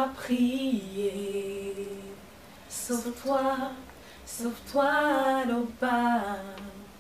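Women singing a cappella. A note is held for about two seconds, then after a brief pause come several shorter sung phrases.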